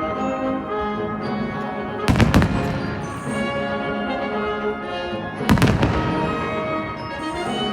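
Fireworks bursting in two loud volleys of booms and crackles, about two seconds in and again about five and a half seconds in, over music played for the show.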